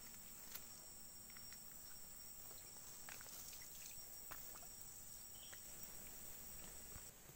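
Faint, steady high chirring of forest insects, with a thinner high tone that stops near the end. A few soft footsteps on the wet trail.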